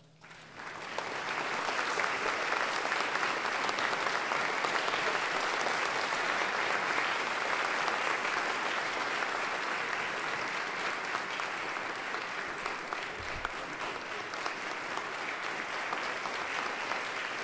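Audience applause breaks out as the music ends and within about a second grows into steady, dense clapping.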